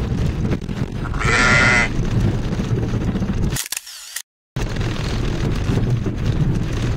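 Low rumble of a car heard from inside the cabin, with a loud wavering high-pitched sound lasting under a second about a second in. The sound cuts out for about a second after three and a half seconds, then the rumble resumes.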